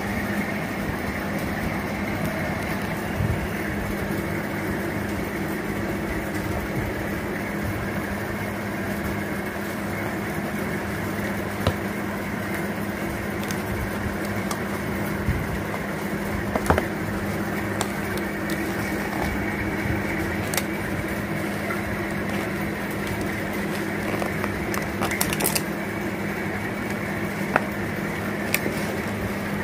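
Steady low hum, like a fan or air conditioner running, with a few light taps and knocks from cardboard takeaway boxes being handled and set down on plates.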